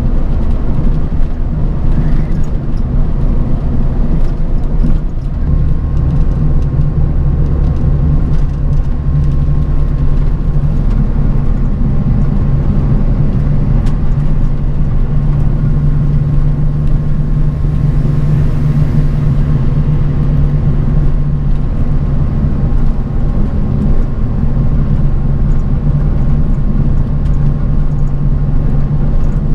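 Bus travelling on the road, heard from inside the passenger cabin: a steady low engine and road drone with no change in pace. A faint steady high tone joins about five seconds in.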